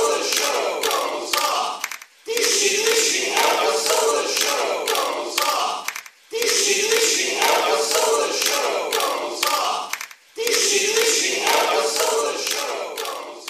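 A crowd chanting in unison, the same chant of about four seconds repeated over and over with a brief break between repeats, fading out near the end.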